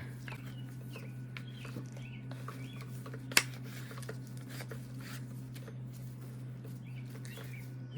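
Small clicks and handling noises of a vintage rotary telephone handset being reassembled, a part fitted back on by hand, with one sharp click a little over three seconds in. A steady low hum runs underneath.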